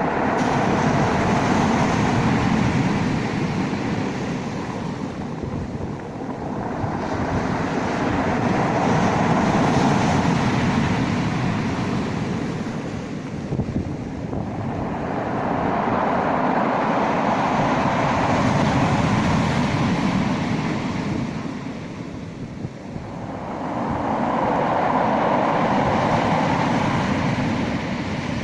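Sea waves washing in and drawing back, a continuous rushing that swells and eases in slow surges about every seven to eight seconds.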